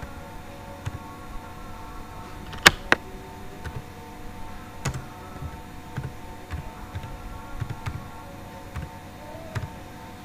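Slow, irregular keystrokes on a computer keyboard, about a dozen separate clicks, with one louder click about two and a half seconds in, over a faint steady hum.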